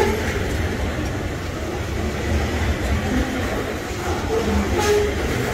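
A train rolling along the track: a steady low rumble of the wagons on the rails.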